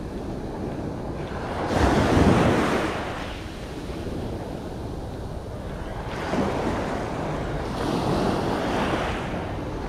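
Sea waves breaking and washing on the shore: the loudest surge comes about two seconds in, and two smaller ones follow near the end. Wind rumbles on the microphone.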